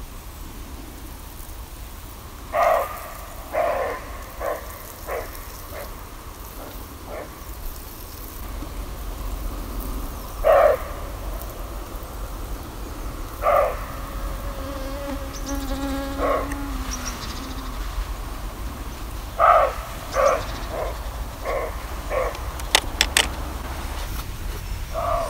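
Flies and mosquitoes buzzing close past the microphone in a dozen short, loud passes, with one longer, lower fly drone in the middle. A few sharp clicks near the end.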